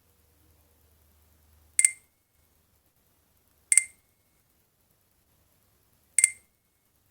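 Alcatel OT-810 mobile phone's keypad tones: three short, sharp beeps about two seconds apart as its keys are pressed to step through the menus.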